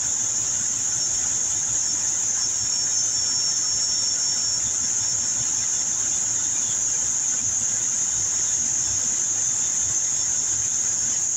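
Cummins ISX diesel engine idling steadily at about 650 rpm with a constant high-pitched whine over it, while a rail pressure test builds common rail fuel pressure.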